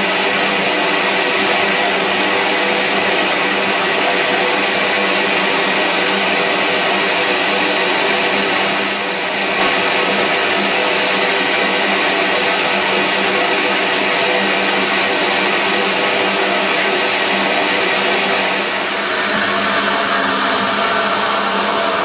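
CNC router spindle running a 1/4-inch 60-degree V-carve bit through mahogany, together with a dust collector's steady noise. Loud and steady, dipping slightly about nine seconds in and again near nineteen seconds.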